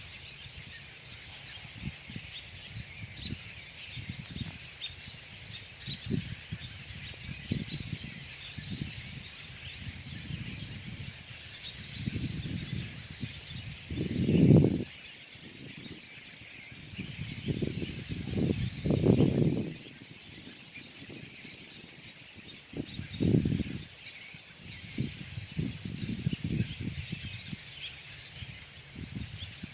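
A flock of birds chirping and calling continuously while feeding on berries, many small overlapping high chirps. A few low, muffled bursts of noise break in, the loudest around the middle and again near three quarters of the way through.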